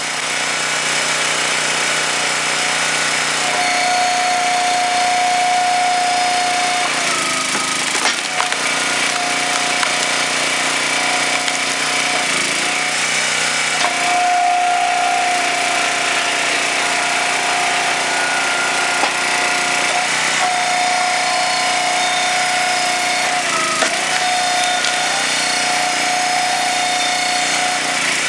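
Huskee 22-ton log splitter's small gas engine running steadily, with a high whine that breaks off and comes back several times as the splitter is worked.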